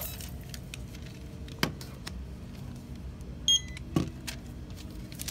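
Handheld barcode scanner at a store checkout giving one short beep as a receipt barcode is scanned, with a couple of light knocks on the counter around it over a steady low hum.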